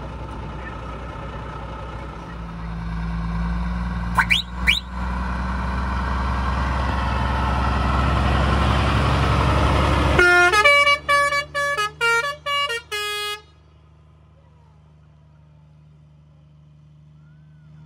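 ERF tractor unit's diesel engine pulling away and building in revs, with two short rising whistles about four seconds in. About ten seconds in, its musical air horns play a short tune of about eight notes at different pitches, then the engine fades as the truck moves off.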